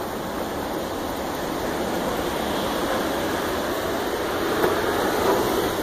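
A steady rushing noise that swells a little toward the end.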